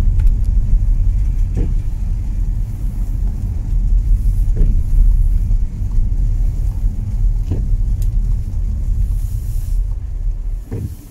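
Low, steady rumble of a car's engine and tyres on a wet road, heard from inside the cabin, with a windscreen wiper sweep about every three seconds. The rumble eases near the end as the car slows.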